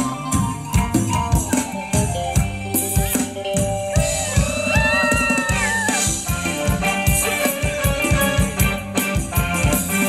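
Live Thai ramwong dance music from a band: a steady drum beat with shaken percussion, and a wavering melody line over it.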